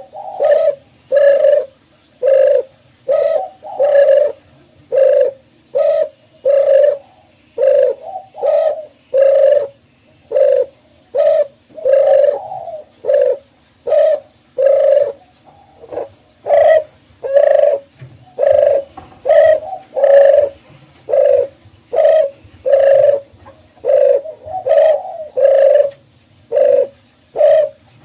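Doves cooing: a steady run of short, low coos about one a second, some of them overlapping as if from more than one bird.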